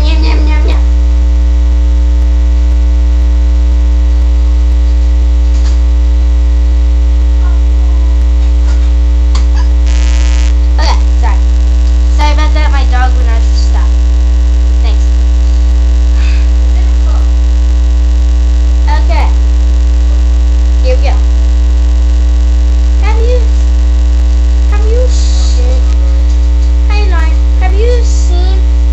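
Loud, steady electrical mains hum on the recording. Faint children's voices come through now and then underneath it.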